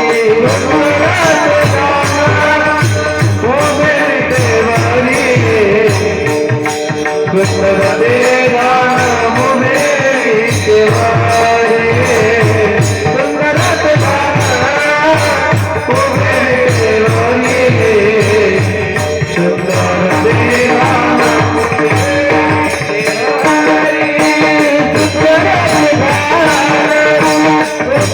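Marathi devotional panchapadi bhajan: a lead voice sings long, drawn-out melodic lines over a hand drum beating a steady rhythm and jingling hand percussion.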